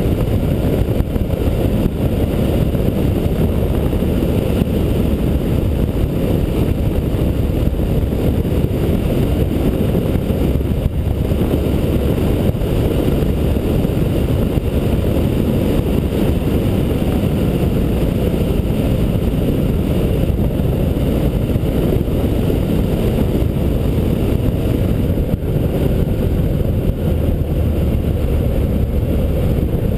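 Motorcycle ridden at steady road speed, heard from an on-board camera: a dense, even low rumble of engine and wind rush that keeps on without a break.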